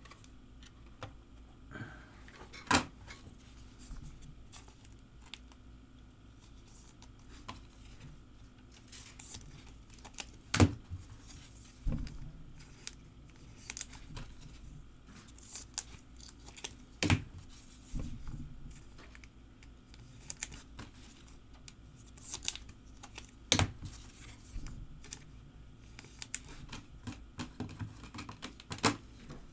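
Trading cards being slipped into plastic sleeves and top loaders by hand. Scattered light clicks and plastic rustling, with a sharper knock every several seconds as a finished card is set down on the table.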